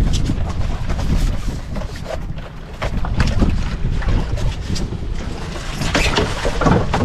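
Wind buffeting the microphone on an outrigger fishing boat, with water against the hull and clicks from plastic handline spools being handled; about six seconds in, a float and line thrown overboard splash into the sea.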